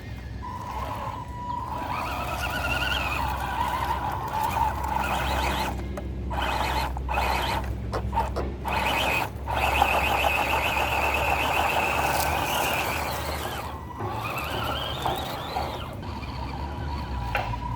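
Electric motor and gearbox of an MN86KS RC scale crawler whining as it drives, the pitch rising and falling with the throttle and cutting out briefly several times around the middle.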